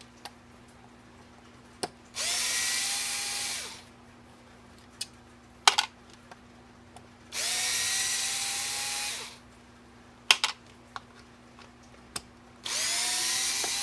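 Small cordless electric screwdriver backing out 2.5 mm hex screws, three short runs of its motor, each starting with a rising whine as it spins up. Light clicks come between the runs.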